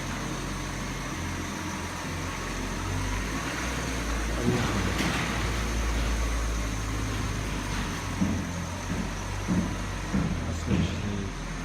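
BMW X5 E70 engine running as the SUV drives out, getting louder about four seconds in. A few short thumps come in the last few seconds.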